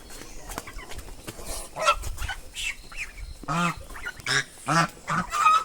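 Domestic ducks or geese at feeding time giving a quick run of short calls, about seven of them, beginning about two seconds in.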